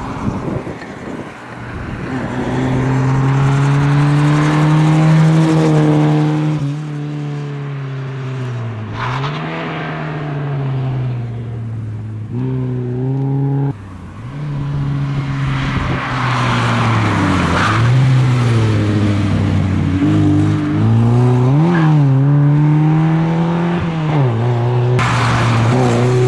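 Lada rally car's four-cylinder engine revving hard as it is driven through the gears, its pitch climbing and then dropping sharply at each gear change and lift-off. The sound breaks off abruptly a couple of times.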